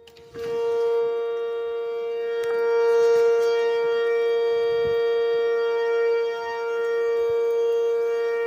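Outdoor warning siren sounding a steady tone at a single held pitch. It grows loud about a third of a second in, then swells and dips in loudness without any change in pitch.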